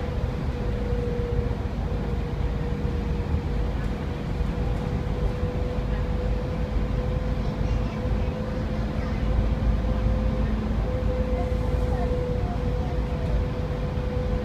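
Dennis Enviro 400 double-decker bus running steadily, heard from inside the lower deck: a low engine and road rumble with a steady whine held at one pitch.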